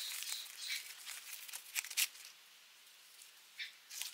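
Faint rustling of a cloth drawstring pouch as a small controller is slid out of it, with soft clicks in the first couple of seconds. After that comes a quiet stretch, broken by a couple of short light ticks from handling near the end.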